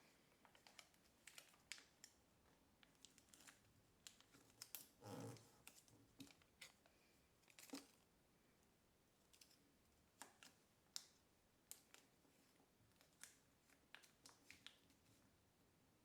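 Faint crinkling and tapping of a sheet of kami origami paper being folded and creased, in irregular short crackles, with a longer rustle about five seconds in.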